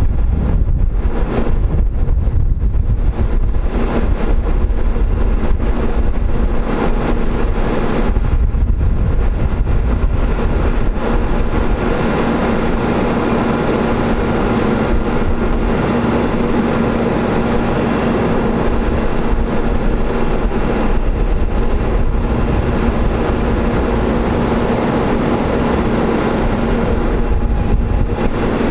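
Diesel engine of a digger derrick truck running steadily to power the hydraulics while the Telelect Commander 6000 boom is slowly worked. Wind buffets the microphone in the first part, and a steady hum comes through more clearly about halfway in.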